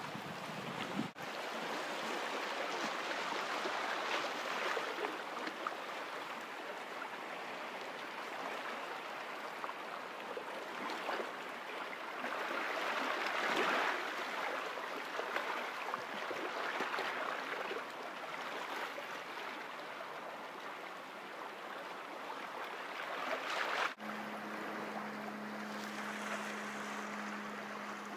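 Sea water washing and trickling among tide-pool rocks, swelling and easing every few seconds. A low steady hum comes in about four seconds before the end.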